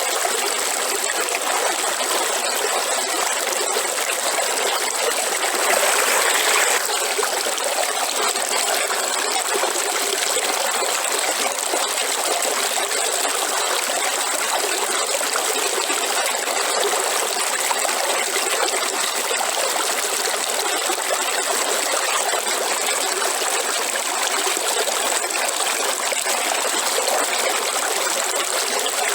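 A river or stream flowing steadily, trickling and rushing, with a brief swell about six seconds in.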